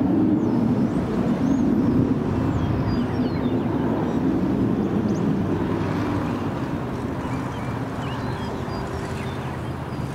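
Cessna Citation III business jet's twin Garrett TFE731 turbofans, a steady low rumble that slowly fades as the jet climbs away after takeoff. A few faint high chirps sound over it.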